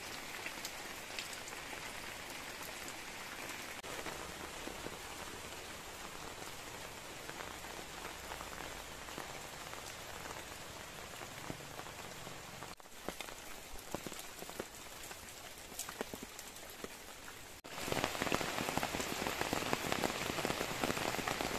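Steady rain falling, with many separate drop ticks on surfaces. It cuts out briefly twice and is louder over the last few seconds.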